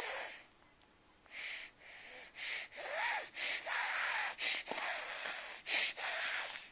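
A young child sniffling and snorting through a stuffy nose: a quick run of about ten short, noisy breaths, some carrying a faint wheezy squeak.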